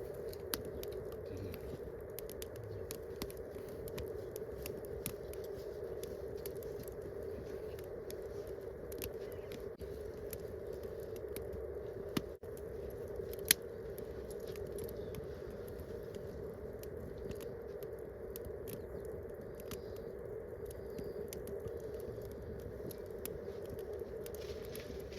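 Wood campfire crackling, with many scattered small pops and two sharper, louder pops about halfway through.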